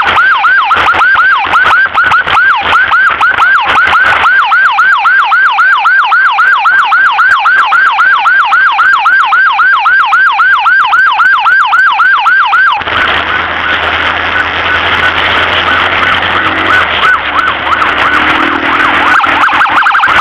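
Emergency vehicle siren in a fast yelp, about three rising-and-falling sweeps a second. Roughly two-thirds of the way through it gives way to a noisier, fainter wail with a low steady tone under it, and a fast high warble starts at the very end.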